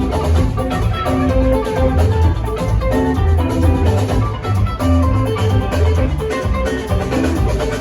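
Live funk jam band playing a song: guitar over a busy bass line and drum kit, loud and continuous.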